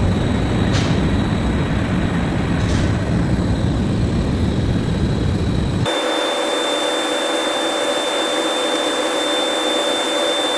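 Steady loud machine noise with a deep rumble. About six seconds in it cuts abruptly to a thinner hiss carrying a steady high whine and a hum.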